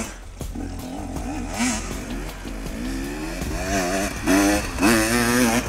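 Dirt bike engine revving up and down repeatedly, its pitch rising and falling with the throttle; quieter in the first second, loudest with two sharp rises around four and five seconds in.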